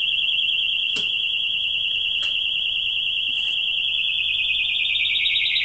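Function-generator test tone near 3 kHz, warbling fast as a second generator sweeps it at 20 Hz, played through the audio amplifier of a 1950 AWA Radiola 528MA valve radio. About four seconds in the warble starts to widen as the sweep amplitude is turned up. Two faint clicks come early on.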